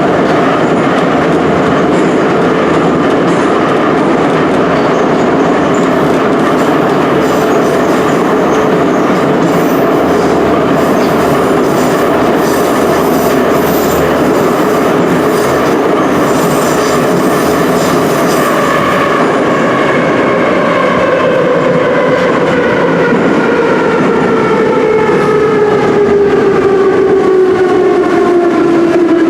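Moscow metro Ezh3/Em-508T train running through the tunnel: a loud, steady rumble of wheels on rail. From about two-thirds of the way through, the traction motors' whine falls steadily in pitch as the train slows for the next station.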